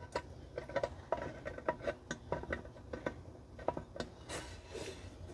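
Phillips screwdriver turning a screw to fasten a handle onto a metal grill pan: a run of small, irregular clicks and ticks of metal on metal.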